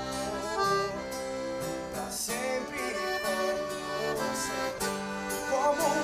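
Philharmonic piano accordion playing a melodic instrumental break in a romantic sertanejo song, over strummed acoustic guitar. The male voice comes back in near the end.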